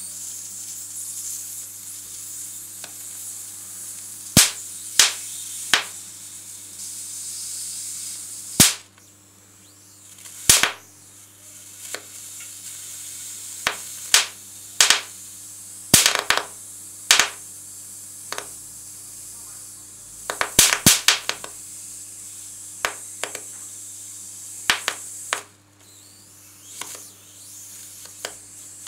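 High-voltage electric arcs from a TV flyback transformer with tripler (about 20 kV) discharging across pencil graphite on paper: a steady hiss broken by loud sharp snaps at irregular intervals, some coming in quick clusters, over a steady low hum.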